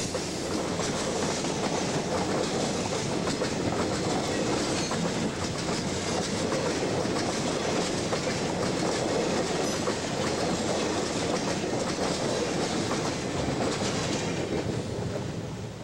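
Freight train cars rolling past on the track, a steady clatter of wheels over the rails, fading near the end.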